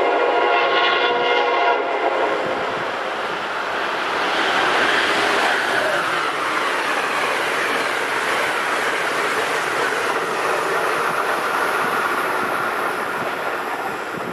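Horn of an Amtrak ACS-64 electric locomotive sounding one multi-tone blast that stops about two seconds in. Then comes the loud, steady rush of the passenger train passing at speed, which fades slowly near the end.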